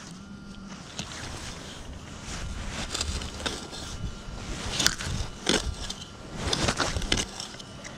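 Small hand-digging shovel cutting and scraping through soil and grass roots in a run of crunching strokes that come faster and louder in the second half.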